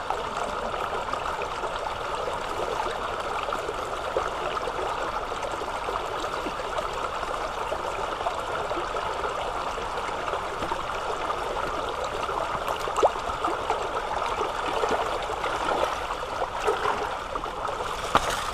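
Small rocky stream rushing and splashing over stones close by, a steady even rush of water.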